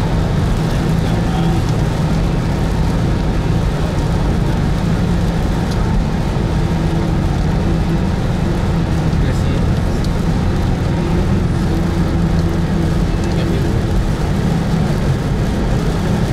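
Steady in-cabin noise of a car driving on a rain-wet motorway: a low engine and road hum with tyre noise from the wet surface.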